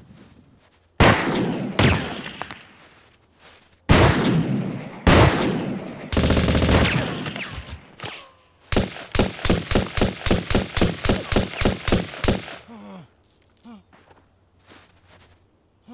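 Gunfire in a forest firefight: a few single heavy shots with echoing tails, then a continuous stretch of rapid fire, then a steady run of shots at about four to five a second that stops suddenly.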